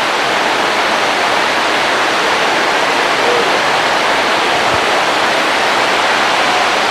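A steady, loud hiss that does not change or break.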